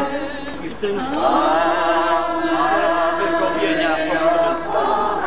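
A crowd singing a hymn together, holding long drawn-out notes, with a brief break about a second in.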